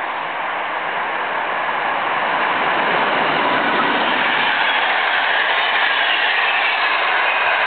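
Electric passenger train, an ES64F4 Eurosprinter locomotive hauling passenger coaches, passing close at speed: a steady rushing of wheels on rails that grows louder about two seconds in as the coaches go by.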